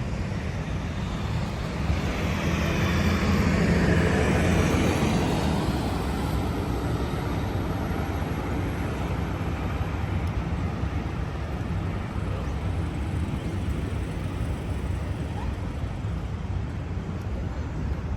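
City street ambience: a steady low traffic rumble, with one vehicle passing by that swells and fades away, loudest about four seconds in.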